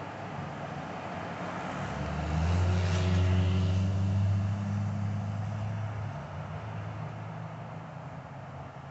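Road traffic: a car passes close by, its engine hum and road noise swelling about two seconds in and fading away by about six seconds, over steady traffic noise.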